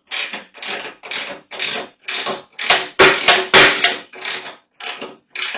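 A 17 mm ratcheting wrench cranking a scissor jack's screw to lift the rear of a motorcycle, in short rhythmic strokes about two a second. The strokes grow louder a little past the middle.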